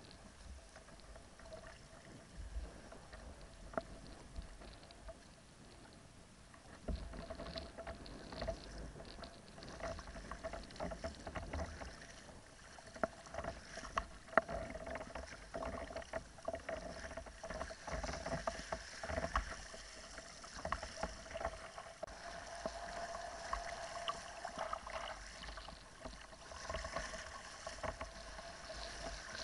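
Water splashing and sloshing against a sea kayak's hull in choppy sea, with wind buffeting the microphone. It grows louder about seven seconds in.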